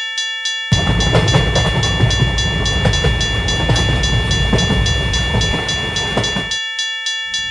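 A railroad crossing warning bell dings steadily about three times a second. From about a second in, a train passes loudly with a rumble and clatter, cutting off about a second before the bell stops.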